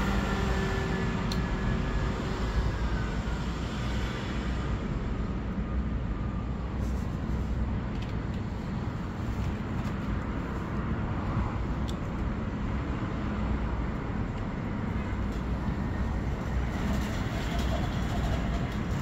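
Steady rumble of road traffic. An engine tone glides past and fades in the first few seconds, and a few faint clicks sound now and then.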